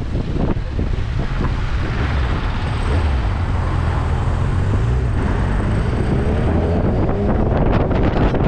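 Motorcycle engine running under heavy wind noise on the microphone, its pitch rising from about six seconds in as it picks up speed.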